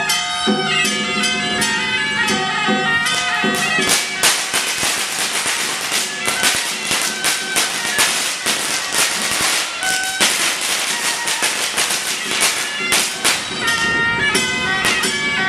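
Taiwanese Daoist ritual music: a reedy wind melody over other instruments, broken in the middle by a long run of rapid sharp crashes, after which the melody returns.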